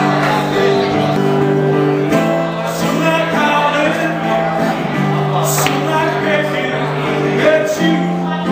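A man singing while strumming an acoustic guitar, a solo live performance of his own song.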